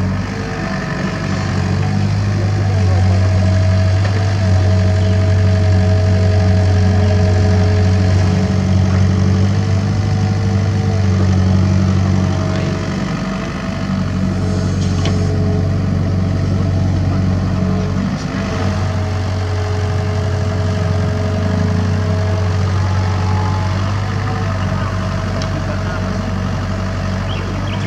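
Komatsu PC75UU mini excavator's diesel engine running under load as it digs dirt: a steady low drone with a thinner, higher steady tone above it. The level sags briefly about halfway through and again a few seconds later as the load changes.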